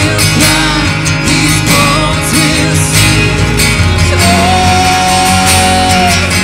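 Live worship band playing a slow song, with electric bass, violin and acoustic guitar under singing. A long held high note comes in about four seconds in.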